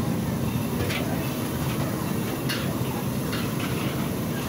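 Steady low roar of a gas burner firing under a kadai of frying jalebis, with a few faint clicks.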